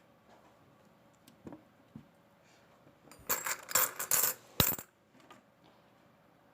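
Coins clinking and dropping: a quick flurry of metallic jingles about three seconds in, lasting about a second and a half.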